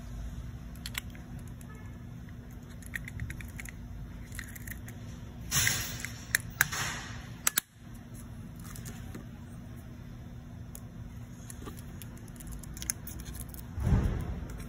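Small plastic clicks, taps and scraping from a Jaguar key fob's casing being handled and pressed together. A louder rustling scrape with several sharp snaps comes a little before the middle, and another short rub near the end.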